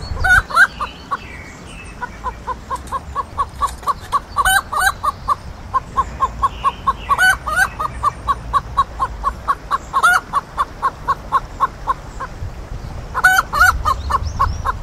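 A hen clucking, about four short clucks a second, broken every three seconds or so by a louder, higher drawn-out squawk: a hen's cackle.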